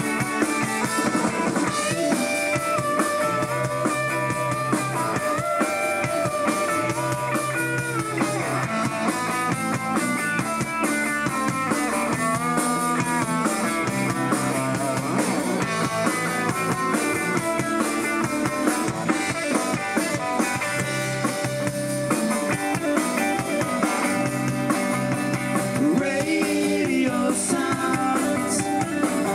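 Live rock band playing an instrumental passage: electric guitars over bass and drums, with no vocals.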